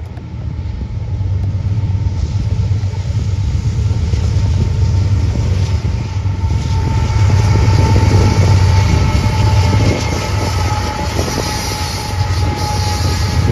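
Norfolk Southern freight train's diesel locomotives running past, a deep engine rumble that builds as they draw near and is loudest a little past the middle. A steady high tone joins about halfway through.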